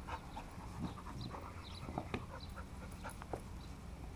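A young Labrador panting as it runs with a ball in its mouth, with scattered light ticks and knocks.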